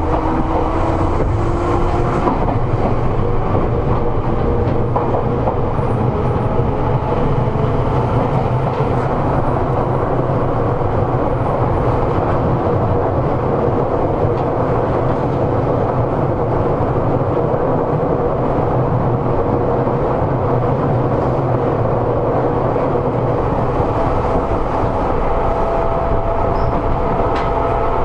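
Seibu 101 series resistance-controlled electric train running between stations, heard from inside motor car MoHa 247: a steady rumble of wheels on rail with an even motor and gear hum.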